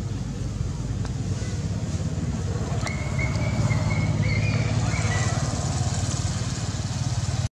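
Steady low hum of an engine running, swelling slightly midway. A faint, thin, wavering high chirp sounds for about two seconds starting three seconds in.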